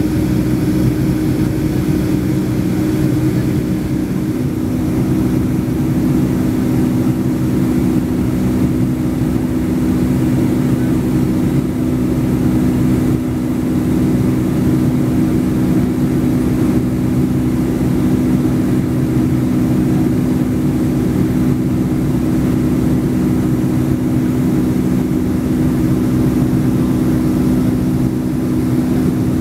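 Boeing 757-200 turbofan engines running steadily, heard inside the cabin over the wing: a constant low hum of a few steady tones over rushing air noise.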